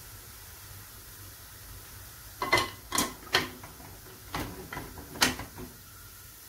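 Pans being handled and shifted on a gas stove's grate: after about two seconds of quiet, a run of roughly six sharp clanks and knocks of cookware over about three seconds.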